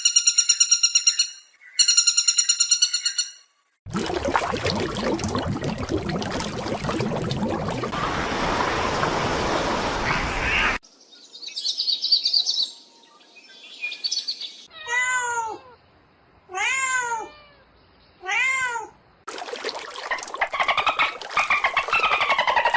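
A run of different animal calls, one after another: two short fast-pulsing high calls, a long noisy call lasting several seconds, then a domestic cat meowing three times, followed by another harsh call near the end.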